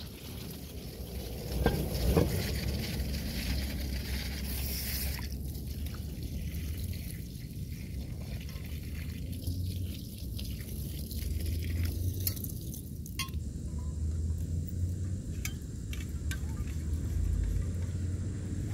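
Muffled handling noise from a covered phone microphone: a steady low rumble with a few scattered clicks and knocks, more of them in the second half.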